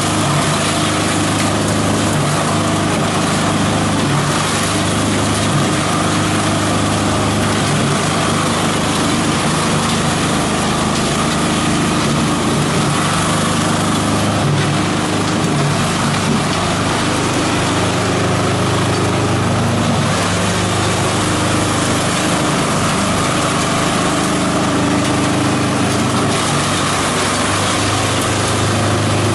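Engine-driven multi-purpose chopper-shredder machine running steadily under load as it shreds plant material, a constant mechanical drone over the rasp of the cutters.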